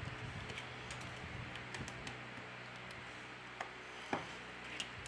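Light, scattered clicks and taps of a plastic card being worked under a smartphone's glued back cover to cut the adhesive, over a faint steady hum.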